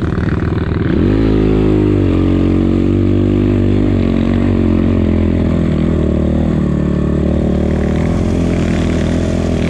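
Enduro motorcycle engine running. Its pitch rises about a second in, then holds a steady low note.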